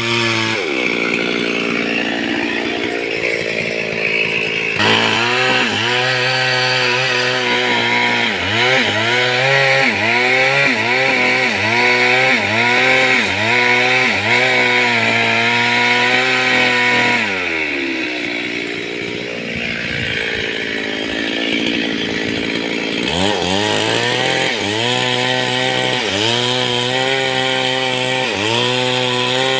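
Stihl MS 382 two-stroke chainsaw cutting wood, its engine pitch repeatedly dipping and recovering about once a second under load. Partway through it falls to a lower speed for about five seconds, then revs back up and resumes cutting.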